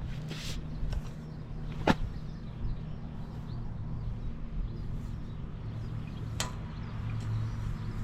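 Suzuki Bandit 250's 249 cc inline-four engine idling steadily, with three sharp clicks, the loudest about two seconds in.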